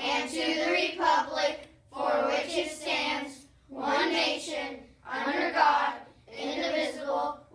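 A group of children reciting the Pledge of Allegiance in unison, in short phrases with brief pauses between.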